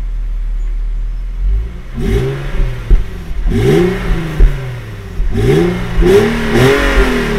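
Infiniti G35's V6 on its stock exhaust, heard at the tailpipe: idling steadily for about two seconds, then revved in a series of quick throttle blips, each rising and falling back.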